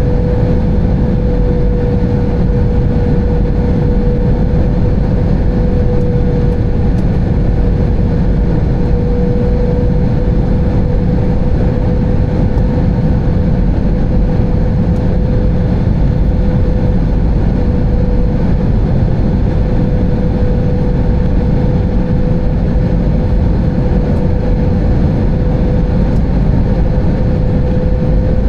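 Airbus A320 cabin noise from inside the passenger cabin: a steady, loud rumble of the running jet engines and airflow, with a constant hum-like tone.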